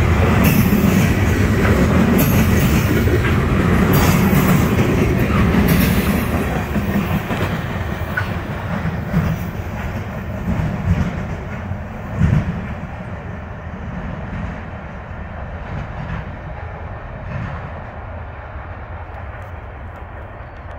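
Loaded trash cars of a freight train rolling past, wheels clacking and rumbling on the rails. The sound fades steadily as the end of the train moves away, with one sharper knock about twelve seconds in.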